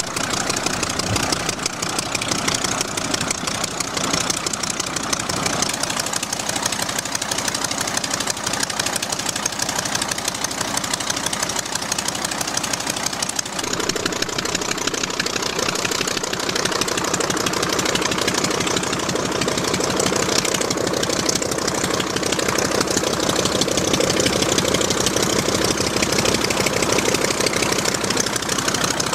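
Five-cylinder radial engine of a 1941 Ryan PT-22 trainer running with a rapid, even beat as the plane taxis. About halfway through, the sound changes and becomes fuller.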